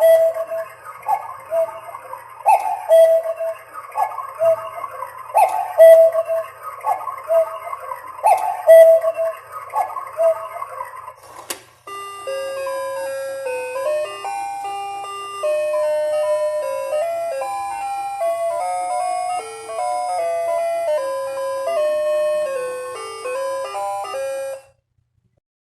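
Cuckoo alarm clock sounding its alarm: repeated two-note falling cuckoo calls for about the first half. After a click it switches to a tinkling electronic melody, which stops abruptly near the end.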